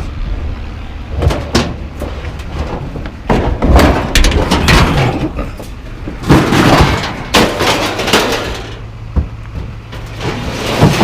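Scrap metal banging and clattering as it is unloaded and dumped: a run of irregular loud crashes and knocks, heaviest in the middle, over a steady low engine hum.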